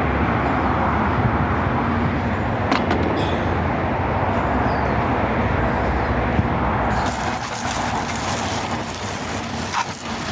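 Water from a garden hose spray nozzle running steadily onto fan parts being rinsed. About seven seconds in, a sharper hiss joins for a few seconds, then drops away near the end.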